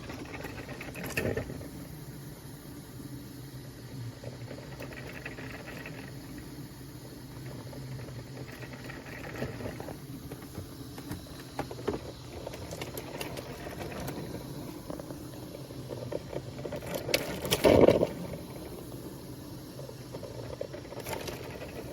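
Braun BrewSense drip coffee maker brewing: a steady gurgling and hissing of heated water over a low hum. There is a knock about a second in and a louder clatter near the end.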